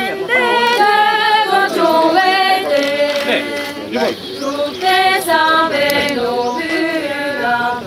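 Group of Tibetan women singing a song together without accompaniment, long held notes that step up and down in pitch.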